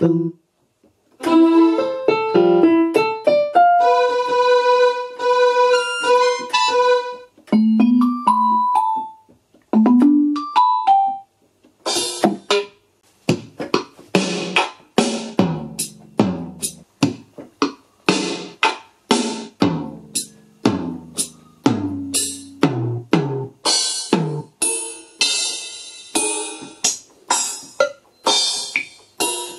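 Casio CTK-541 electronic keyboard played one key at a time: first a handful of sustained pitched notes, then, after about ten seconds, a string of single drum and percussion hits from its Percussion tone.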